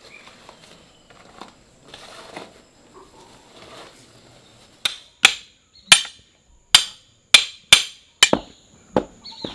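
Faint rustling, then about nine sharp knocks, one every half second to a second, as a mammoty's wooden handle is driven into its iron hoe blade.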